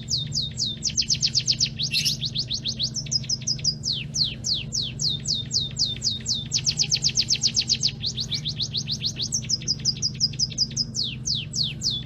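Munias chirping: a rapid, continuous run of short, high chirps, each falling in pitch, about ten a second, with a few brief breaks, over a low steady hum.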